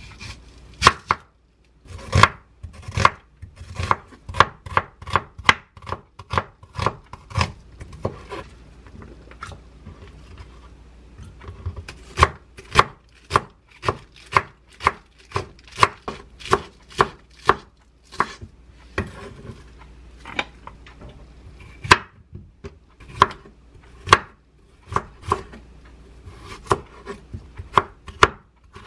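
Chef's knife slicing onion, napa cabbage and cucumber thinly on a wooden cutting board. Each stroke is a sharp knock of the blade on the board, in runs of about two a second, with a short lull about a third of the way in.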